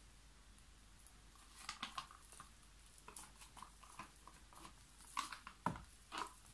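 Faint, scattered clicks, taps and soft squishes from a plastic cup of acrylic paint being handled and poured out, then scraped with a wooden stir stick. The sounds come a little thicker and louder near the end.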